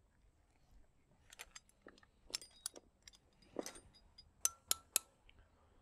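Steel climbing hardware clinking: the socket wrench, carabiner and stainless bolt hanger knocking together. About a dozen irregular sharp clinks start about a second and a half in, some with a brief metallic ring.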